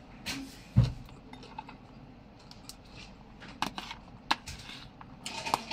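Metal cutlery clinking and scraping against a plastic food container as food is scooped up, in a series of short scattered clicks, with one dull thump about a second in.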